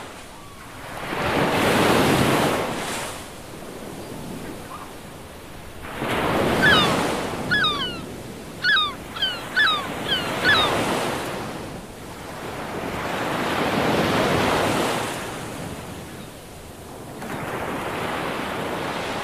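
Sea surf breaking and washing in slow surges about every four seconds, with a flurry of short gull calls in the middle.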